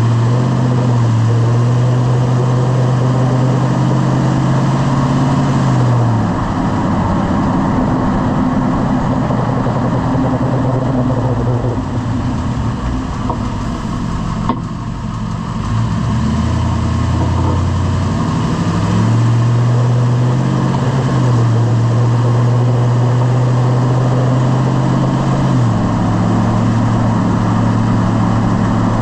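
Lifted pickup truck's engine and drivetrain while driving: it speeds up, holds and slows down twice. A single sharp knock comes about halfway through while the truck is slowing, of the kind the owner is chasing as a clunk under braking.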